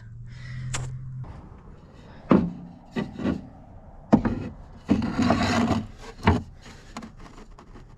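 Wooden boards being handled and fitted: scattered wooden knocks, with a scraping, rubbing stretch of wood on wood about five seconds in.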